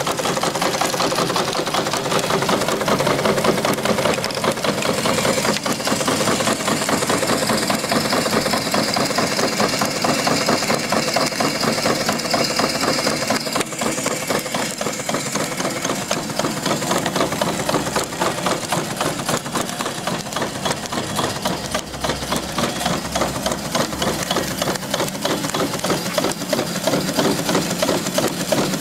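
The twin steam engines of a quarter-scale live steam logging donkey are running with a rapid, even beat. A higher hiss joins a few seconds in and cuts off sharply about halfway.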